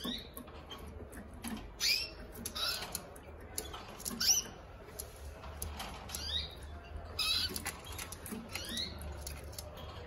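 Canary giving short chirping calls about once a second, with light clicks between them.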